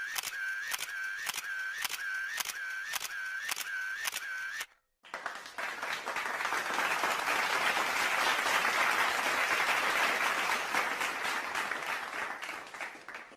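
Two stock sound effects in a row: first a regular series of sharp clicks, about two a second, each with a brief ringing tone, stopping about five seconds in; then applause that swells and fades out near the end.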